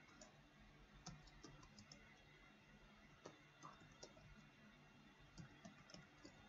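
Faint computer keyboard keystrokes in short, irregular runs of typing.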